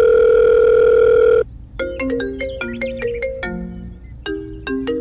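A loud, steady telephone tone that cuts off about a second and a half in, followed by a short melody of quick, sharply struck single notes.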